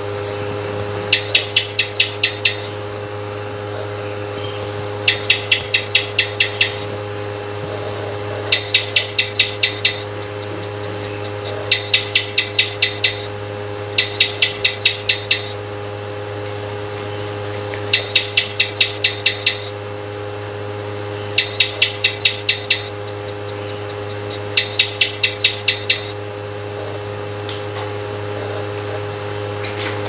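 Gecko chirping: a rapid run of about eight sharp clicks, repeated eight times at regular gaps of three to four seconds. A steady low hum runs underneath.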